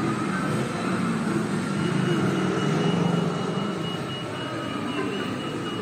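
Battery-powered children's ride-on car's electric motors whirring steadily as it drives across a tiled floor. A faint high pulsing tone joins about two seconds in.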